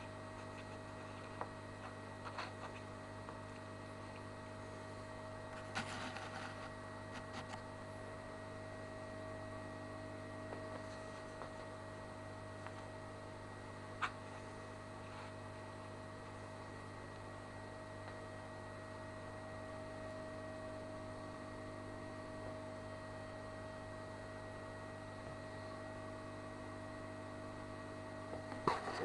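Aquarium filter pump humming steadily, a low hum with a few faint steady higher tones, broken by a few soft clicks, the sharpest about halfway through.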